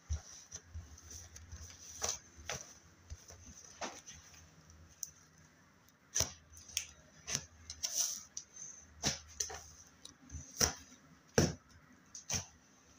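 Slime being handled: irregular sharp clicks and pops, sparse at first and coming more often and louder from about halfway.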